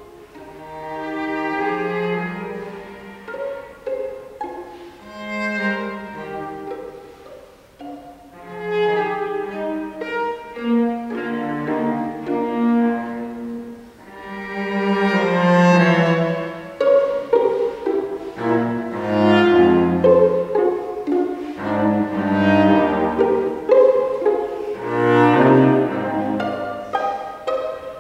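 String quartet of two violins, viola and cello playing classical chamber music, in phrases that swell and ease back, with the cello taking a lower line in the second half.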